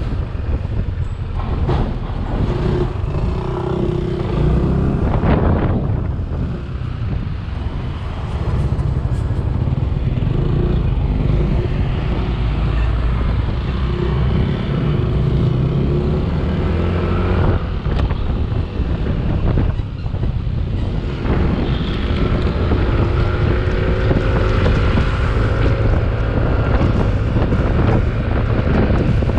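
Wind buffeting the microphone of a moving motor scooter, with the scooter's engine running steadily underneath.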